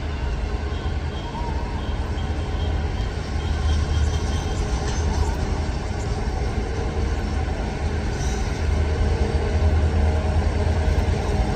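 Train running with a steady, heavy low rumble that grows a little louder in the second half.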